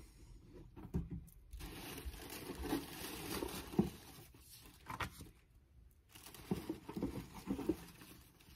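Tissue paper rustling and crinkling as it is pulled apart while a package is unwrapped, with scattered sharper crackles. The rustling comes in two stretches with a short pause about two thirds of the way through.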